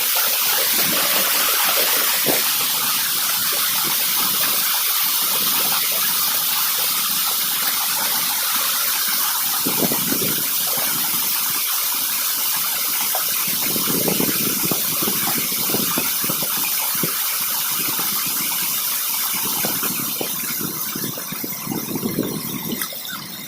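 River water rushing and splashing close by, a steady loud hiss with a few deeper surges; it fades near the end.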